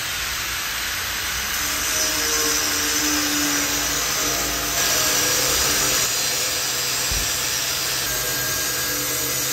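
Corded angle grinder with a cutting disc cutting through steel roof-rack tubing: a steady grinding noise of the disc in the metal, with its tone wavering as the load changes. It gets a little louder about halfway through.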